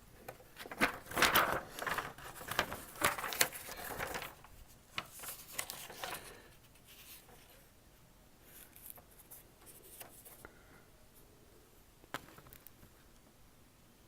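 Paper rustling and crinkling as it is handled, busiest over the first six seconds, then a few faint handling sounds and one sharp click near the end.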